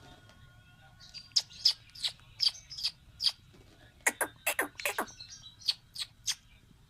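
Pet parrot calling in a series of short, sharp chirps and squawks, starting about a second in, with a quick flurry near the middle.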